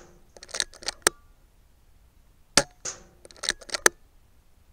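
Air rifle fired once, a sharp crack about two and a half seconds in. Runs of quick mechanical clicks come before and after it as the action is cycled to load the next pellet.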